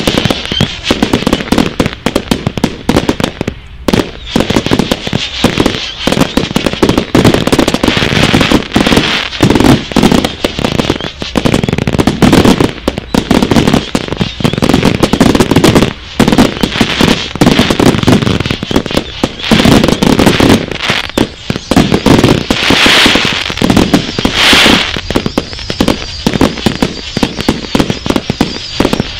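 Fireworks going off in a continuous barrage of rapid bangs packed closely together, with no pause.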